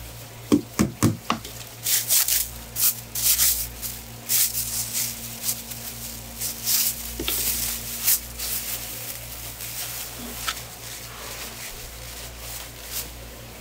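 Thin plastic bag crinkling and rustling in rubber-gloved hands as seafood is bagged and the bag's neck twisted, a quick string of short crackles, with a few soft thuds near the start.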